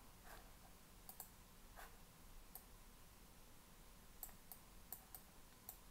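Faint, irregular clicks from computer input at the desk while drawing with the Blender grease pencil, over near-silent room tone.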